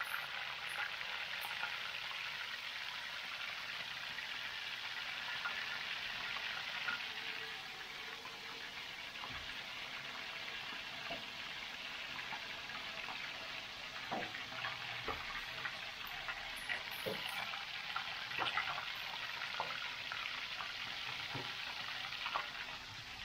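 Crab pieces coated in potato starch deep-frying in a wok of hot oil: a steady sizzle, with scattered light clicks in the second half.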